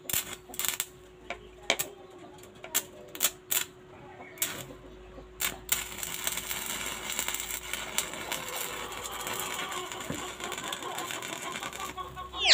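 Arc of a homemade stick welder built from a salvaged amplifier transformer. At first there are sharp separate snaps as the electrode touches and sparks. About six seconds in, the arc catches and crackles steadily.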